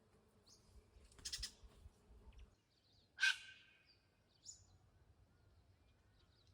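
Birds calling outdoors: a few short, high chirps and one louder, harsh call about three seconds in.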